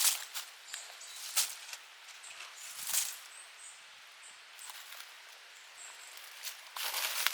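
Footsteps crunching through dry leaves and litter on a forest floor: a few separate steps, then a quicker run of crunching near the end. Faint, short high chirps sound between the steps.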